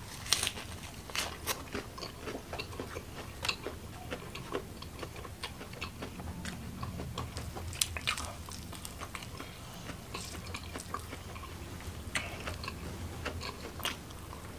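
Close-miked chewing and biting of food, with irregular wet mouth clicks and crunches.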